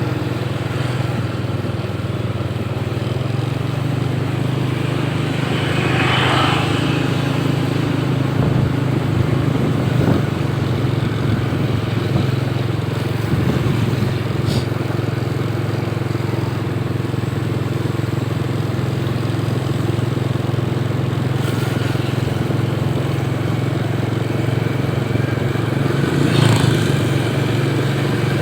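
Small motorcycle engine running steadily at an even speed, a constant low hum with no changes in pitch.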